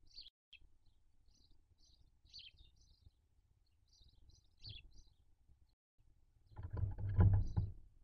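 Faint bird chirps in short groups, and about three-quarters of the way through a louder burst of rustling and scraping as a barn owl shifts in its tree-hollow nest.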